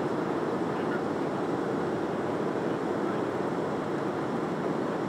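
Steady cabin noise of a Boeing 757-200 on approach, heard inside the cabin: the turbofan engines and rushing airflow blend into an even, unbroken rumble, deepest in the low-middle range.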